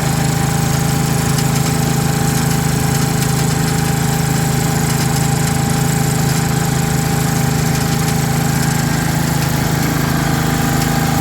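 Ryan core aerator's small engine running steadily at an even speed, loud and unchanging.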